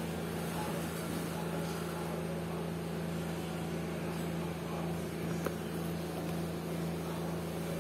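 Electric box fan running with a steady hum and whir, with one small click about five and a half seconds in.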